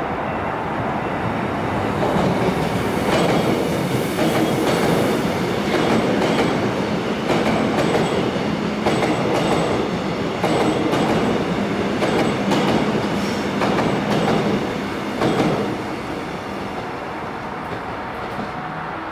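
Korail electric commuter train passing close by, its wheels clacking repeatedly over the rail joints about once a second. The sound swells about two seconds in and eases off near the end as the train moves away.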